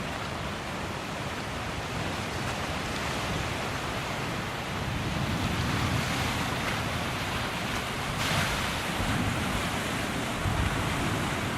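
Wind and rain of a severe thunderstorm: a steady rushing noise that swells a little about halfway through, with wind buffeting the microphone.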